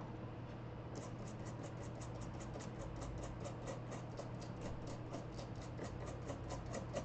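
Rapid rhythmic scrubbing on the laptop's circuit board, cleaning the freshly soldered audio jack joints with alcohol. It makes even scratchy strokes at about four a second, starting about a second in.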